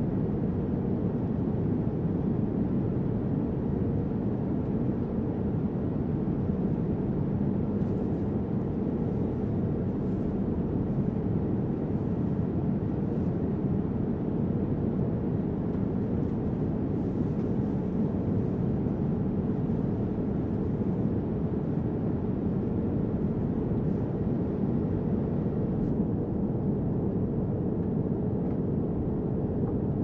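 Airliner cabin noise in cruise flight: the engines and the air rushing past the fuselage make a steady, low-pitched drone that holds level throughout.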